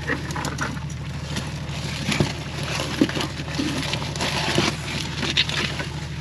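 An engine running steadily, a low even drone, with scattered light clicks and knocks over it.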